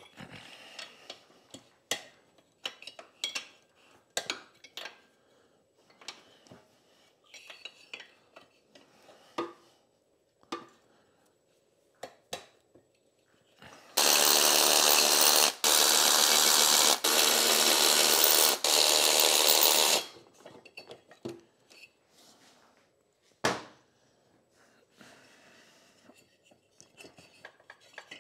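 Hand ratchet clicking and metal tools clinking on the cylinder head nuts of a Kawasaki KD175 two-stroke engine. About halfway through, a cordless power driver runs loudly for about six seconds, stopping briefly three times, as it spins the head nuts off.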